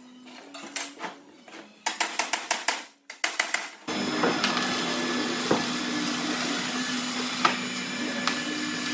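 A few sharp knocks, then about four seconds in a power tool starts and runs steadily.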